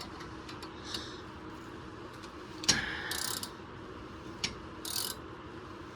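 A ratchet wrench clicking in short bursts as a nut is turned on a bolt that presses the front wheel hub out of its bearing, with a few sharp metallic clicks, the loudest near the middle.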